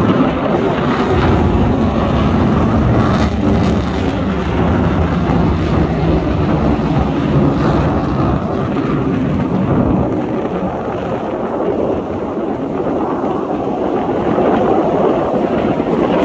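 Fighter jet's engines passing overhead: a loud, steady rush of jet noise that eases a little midway and swells again near the end.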